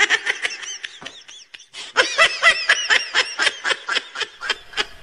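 Rapid, high-pitched giggling laughter: a quick run of short laughs, with a brief pause about a second and a half in.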